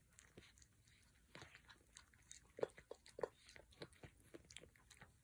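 A cat eating shredded chicken from a bowl: faint chewing and mouth sounds, with scattered short clicks. The two loudest clicks come a little past halfway.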